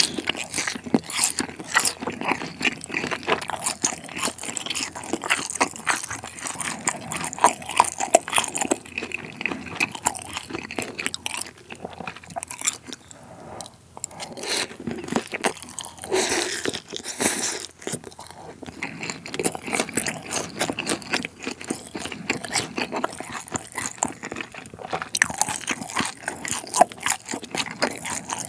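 Close-miked chewing and crunching of Sichuan-style tangsuyuk, the crispy batter of the fried pork crackling in many quick irregular crunches. There is a longer hissing stretch about sixteen seconds in.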